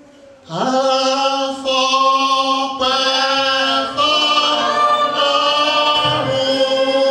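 Church congregation singing a hymn together, coming in about half a second in and holding long notes.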